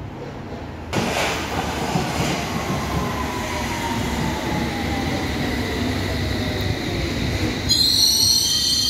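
London Underground S Stock train running into an underground station platform. It starts abruptly about a second in, with a whine that falls steadily in pitch as the train slows over the rumble of the wheels, then loud, high-pitched wheel and brake squealing near the end as it draws to a halt.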